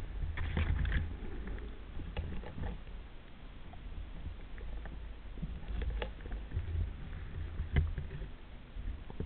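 Water noise: a steady low rumble with scattered clicks and splashes.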